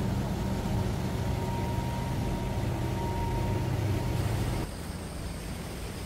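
Small fishing boat's engine running, a steady low hum that cuts off abruptly about four and a half seconds in, leaving a fainter steady hiss.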